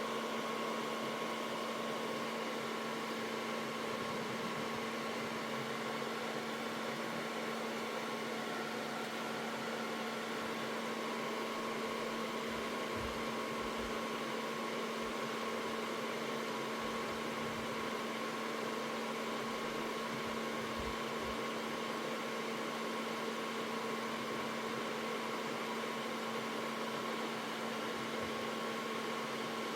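Steady mechanical hum with hiss, holding a few fixed tones, with a few faint low knocks near the middle.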